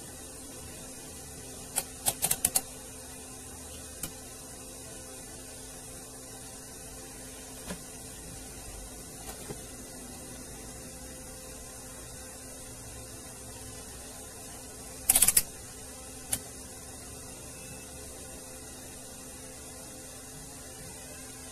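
Sharp clicks and taps from handling a multimeter's test probes and a CRT television's circuit board: a quick run of about five clicks some two seconds in, another run about fifteen seconds in, and a few single taps between, over a steady low hum.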